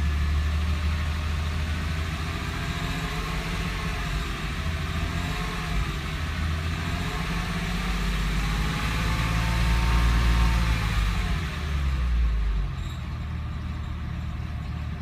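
2007 Porsche 911 (997) Carrera 4S's 3.8-litre flat-six running, with a whining note that rises and falls in pitch: the whining, squeaky noise the owner is trying to track down. About two-thirds of the way in, the sound drops and settles lower and steadier.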